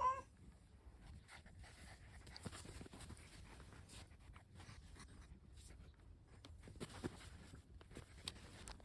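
Faint rustling, light scratching and scattered soft taps, with a brief pitched cry ending in a short upward note right at the start.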